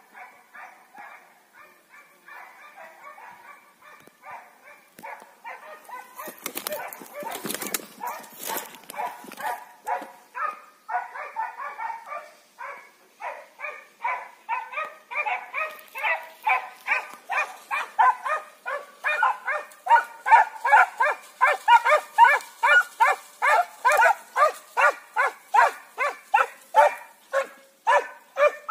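Hunting hounds barking in a steady, rhythmic run of about two barks a second, growing louder over the second half: hounds giving tongue as they chase a hare on its scent. A brief rush of noise comes about seven seconds in.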